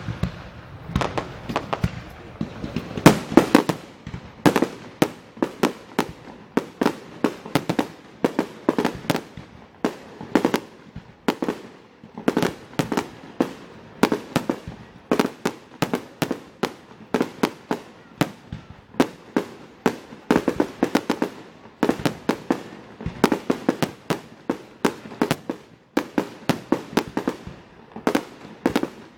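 Fireworks display: a continuous rapid barrage of sharp bangs, several a second, each trailed by a short echo.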